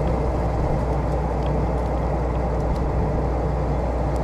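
A combine's diesel engine running steadily nearby with a low, even hum, with a few faint ticks on top.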